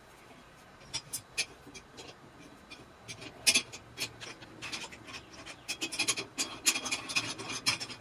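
A hand tool loosening the single mounting bolt that holds a portable bandsaw on its steel stand: scattered metallic clicks and scraping, sparse at first and growing busier from about three seconds in.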